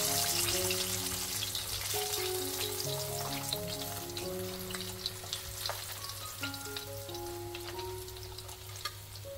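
Hot oil sizzling and crackling around chicken wings deep-frying in a wok. The sizzle dies down steadily as the wings are lifted out with tongs and the oil is left empty.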